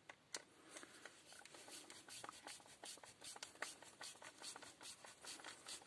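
Faint clicking and scraping of a hand screwdriver turning a screw into the plastic housing of a Black&Decker cordless drill, several small irregular clicks a second.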